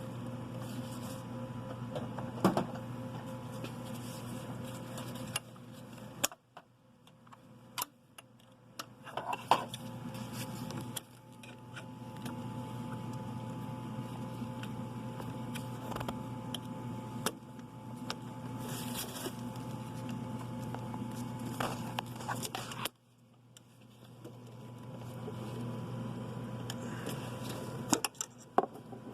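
Occasional sharp clicks and clinks of hand tools on metal parts while working on an engine, over a steady low hum that drops out twice.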